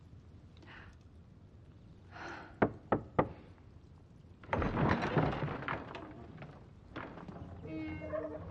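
Three quick knocks on a wooden lattice door, then a longer wooden rattle and scrape as the double doors are moved.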